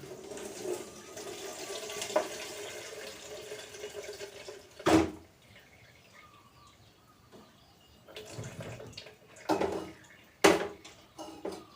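Water running from a tap for about five seconds, then stopping, followed by several separate knocks and clatters.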